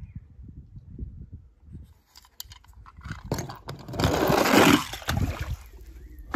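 Toy bus sliding down a plastic slide and splashing into a swimming pool. The noise builds over a second or so and is loudest a little past the middle. Low wind rumble on the microphone at the start.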